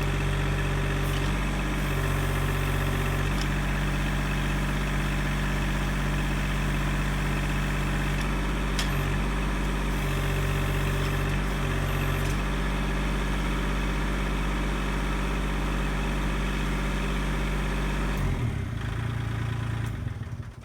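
Kubota L2501 tractor's three-cylinder diesel engine running steadily under backhoe work, its tone shifting a few times as the hydraulics take load. It changes about 18 seconds in and drops away near the end.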